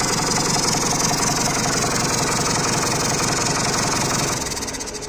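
Sonalika tractor's diesel engine idling with a steady, even pulse; about four seconds in its sound falls away.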